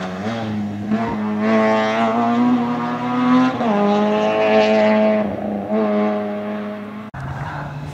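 Race car engine held at high revs under full throttle up a hillclimb, with short dips in pitch at gear changes about three and a half and five and a half seconds in. The engine sound cuts off abruptly about seven seconds in.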